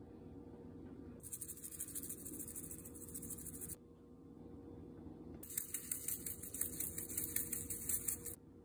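Seasoning shaker bottles shaken over a pot, the dry granules rattling in quick fine ticks in two spells, from about a second in and again from about halfway to near the end, over a faint steady hum.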